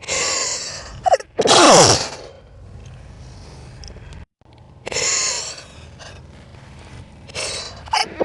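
A person sneezing, played back slowed down, so the sounds are drawn out and low. A long breathy in-breath leads into a loud sneeze about a second and a half in, its pitch falling steeply. Later, two more gasping in-breaths build toward the next sneeze, which starts near the end.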